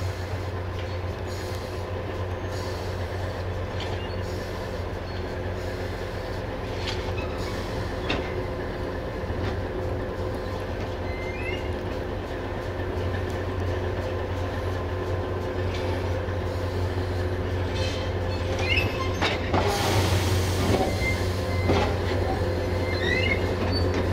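BR232 'Ludmilla' diesel locomotive running steadily as it slowly moves a line of dead ÖBB class 1014 electric locomotives, with a few short wheel squeals from the rails. The sound grows louder toward the end as the locomotives pass close.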